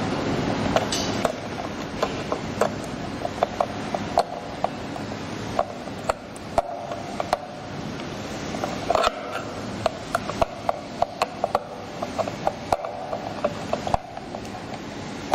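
A screwdriver turning small screws in a traffic light's wiring terminal block: a run of short, irregular metal clicks and ticks over a steady hiss.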